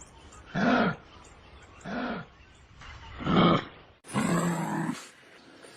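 Kangaroo grunting: three short grunts about a second and a quarter apart, then, after a switch to another recording about four seconds in, one longer grunt.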